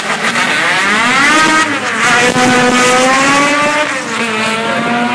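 Drag-racing cars launching off the start line and accelerating down the strip, the engine note climbing through the gears with a sudden drop in pitch at each shift, about one and a half and four seconds in.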